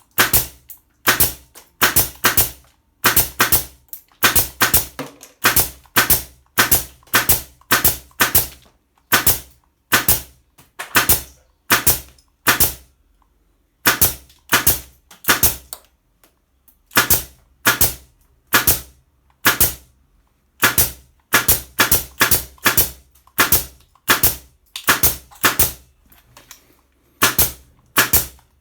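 Makute pneumatic nail gun firing over and over, sharp cracking shots about one to two a second, often in quick pairs, with a few short pauses. The nails strike metal and bounce off.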